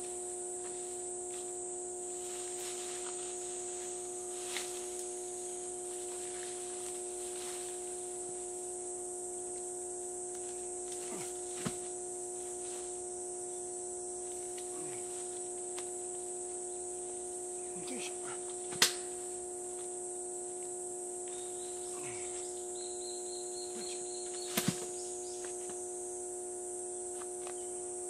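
Insects buzzing steadily, over a steady low hum, with a few sharp knocks. The loudest knock comes about two-thirds of the way through, and a quick double knock follows a few seconds later. The chainsaw is silent.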